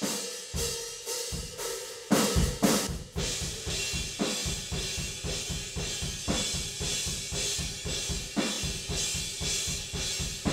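Mono room-microphone track of a rock drum kit playing back on its own: kick, snare and cymbals in a fast, driving pattern, with a loud hit about two seconds in.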